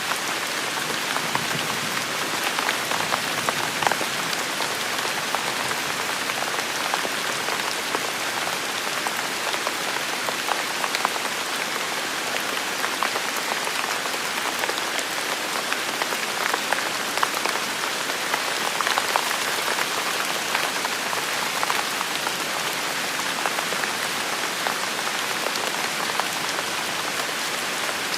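Steady rain falling and pattering on hard surfaces, with many small drop ticks mixed into a constant hiss.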